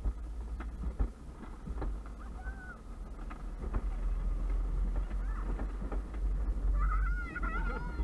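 Wind buffeting the microphone and a gravity luge cart rolling fast over the asphalt track, with scattered knocks and rattles from the cart. High-pitched whoops and squeals from a rider come in short gliding calls, loudest near the end.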